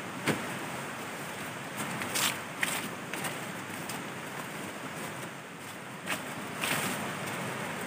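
Steady rush of a river, with a few short rustles and knocks as camping gear is handled and put into a nylon tent.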